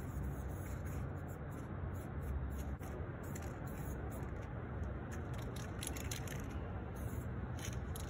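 Steady low rumble of city traffic, with several short hisses of an aerosol spray-paint can.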